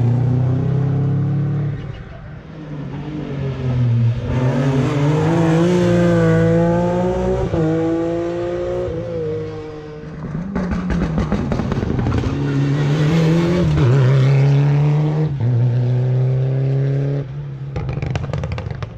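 Rally car engines at full throttle as the cars pass along the stage, revs climbing and dropping sharply at each gear change, with bursts of rapid crackling midway and again near the end.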